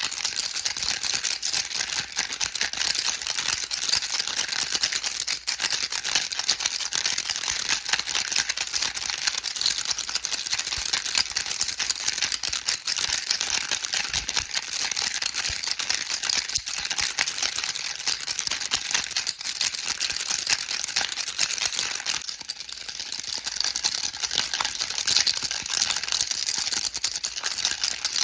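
Baby rattle shaken without pause: a dense, fast rattle of small beads inside a toy shell, briefly a little quieter about three-quarters of the way through.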